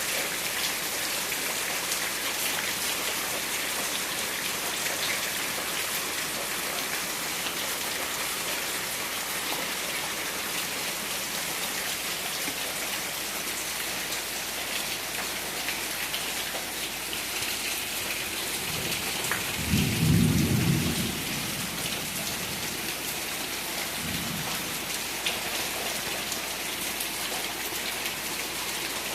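Steady rain falling and pattering on surfaces, with a short, low rumble about two-thirds of the way through and a fainter one a few seconds later.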